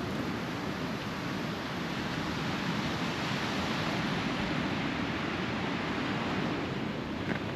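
Steady wash of sea waves breaking on a rocky shore, swelling slightly through the middle.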